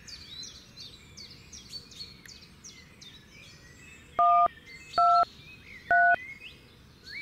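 Small birds chirping, then, about four seconds in, three loud key-press tones from a keypad mobile phone, about a second apart. Each tone is a short beep of two notes held together, and the upper note steps higher each time: the dialling tones of keys 1, 2 and 3.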